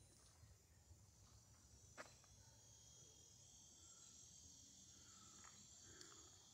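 Near silence with a faint, steady, high-pitched chorus of insects, and a single faint click about two seconds in.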